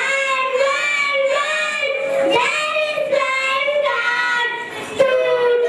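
Young girls singing a song together into stage microphones, in long held notes. A new phrase starts loudly about five seconds in.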